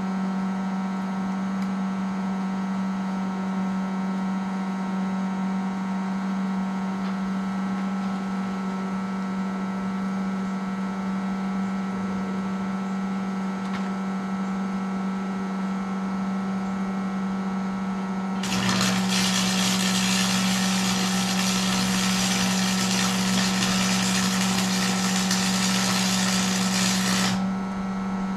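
A steady electrical hum, then about two-thirds of the way in a welding arc starts abruptly and crackles for about nine seconds before cutting off, as a weld bead is laid on the baler's steel.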